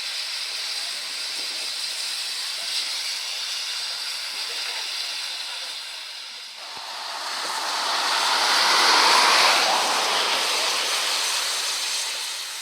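Steam hissing from GWR Large Prairie tank locomotive 5199: a steady hiss, then a louder hiss swells up about halfway through and dies away again near the end.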